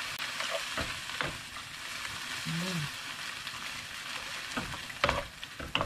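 Jackknife clams and sliced onion sizzling in a little liquid in a non-stick frying pan as they are stir-fried with a wooden spatula and chopsticks. A steady hiss runs throughout, with several knocks of the wooden utensils against the pan, most of them near the end.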